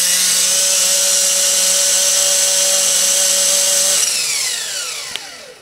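Walkera CB180D RC helicopter's electric motor and gear drive spinning its rotor head on the ground during a check run: a loud, steady high whine for about four seconds, then it winds down, the pitch falling and fading, as the throttle is cut.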